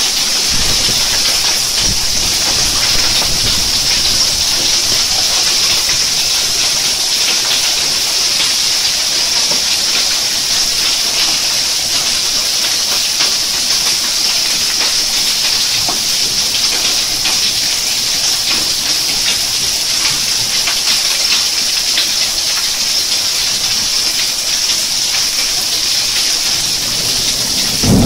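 Heavy downpour of rain mixed with hail: a steady, dense hiss of drops and hailstones pelting the pool water and the ground, thick with tiny impacts.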